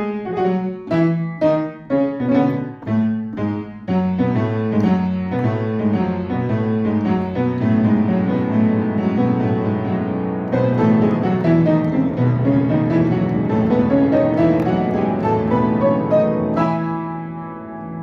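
Piano music: short detached chords for the first few seconds, then flowing running notes, with a falling run and then a rising run in the second half.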